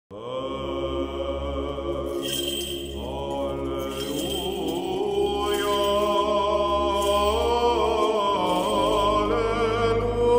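Intro music of slow, chant-like sustained singing over a steady low drone, with the held notes stepping to new pitches a few times.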